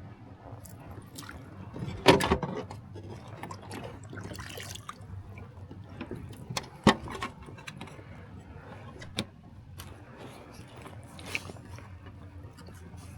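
Water splashing and dripping against a kayak, with several sharp knocks on the hull or gear; the loudest knock comes about two seconds in.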